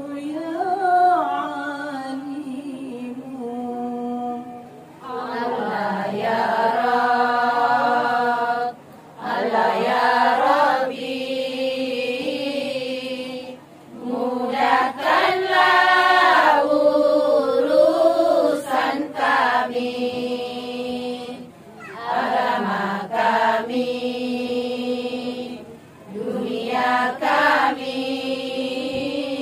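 A group of women singing sholawat (Islamic devotional chant) together in held, melodic phrases. A short pause comes every four to five seconds.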